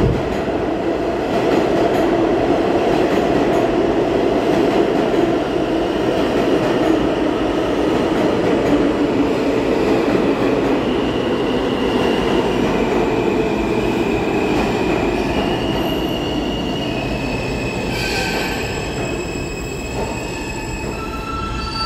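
R160 subway train pulling into the station and braking to a stop: loud running noise with a whine that falls away as it slows, then high-pitched squealing tones over the last several seconds of braking before it halts near the end.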